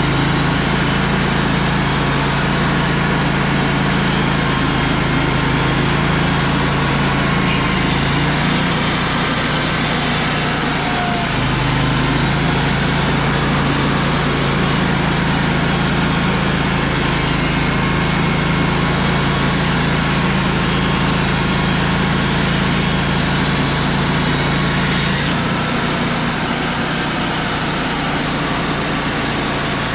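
Wood-Mizer LT35 portable band sawmill running, its engine humming steadily under a constant mechanical noise. The engine note shifts about ten seconds in and again near the end.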